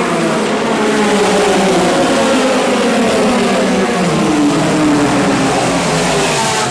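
A field of endurance race cars accelerating past at the race start, several engine notes overlapping, their pitch rising and falling as the cars go by.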